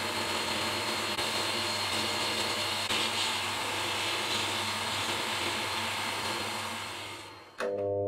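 Sandblaster gun in a blast cabinet blasting rust off steel tape-gun parts: a steady, loud hiss of compressed air and abrasive grit. It fades out about a second before the end.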